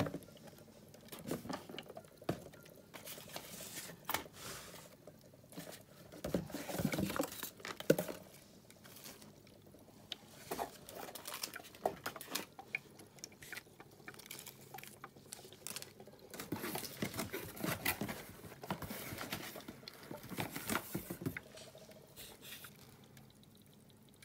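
Sulfuric acid draining from a sealed six-bottle acid pack into the cells of a new YTX7A-BS 12 V 6 Ah maintenance-free motorcycle battery, with irregular faint gurgles and pops. This is the first electrolyte fill that activates the battery.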